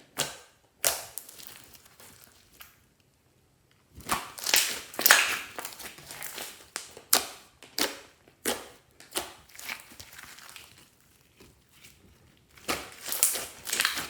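Clear slime mixed with add-ins being squished and pressed by hand, with crunchy crackling and popping in uneven bursts. There is a short pause about three seconds in, then dense crackling, a quieter stretch near the end and a louder stretch at the very end.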